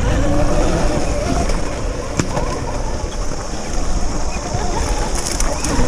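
Electric off-road motorcycle riding over a rough forest dirt trail: a heavy, steady rumble of wind and jolting on the bike-mounted microphone, with a faint wavering whine and a few sharp knocks from the rocky ground, one about two seconds in and a cluster near the end.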